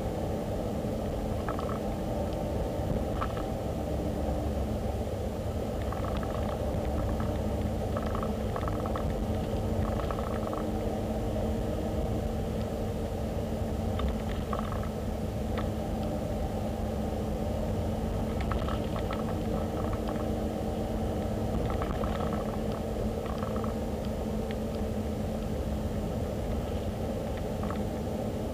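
Steady road and engine noise of a car driving, with faint short ticks now and then.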